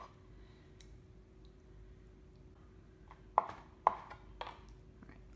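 Chef's knife chopping soft roasted tomatoes on a cutting board: quiet at first, then a few knocks of the blade on the board about three and a half to four and a half seconds in.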